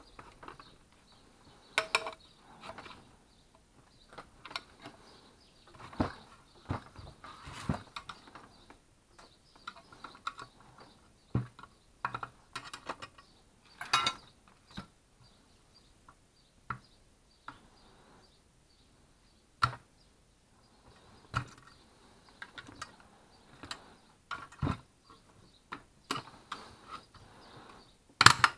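Irregular clicks, knocks and light metallic clatter as a hand-held circular saw is taken apart on a wooden workbench: its aluminium base plate and guard handled and tools picked up and set down. The loudest knock comes near the end.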